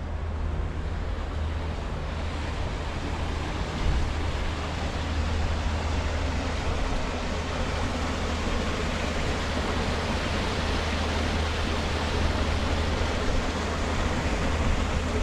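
Wind buffeting the microphone, a steady low rumble under a continuous rushing hiss that grows a little louder after a few seconds.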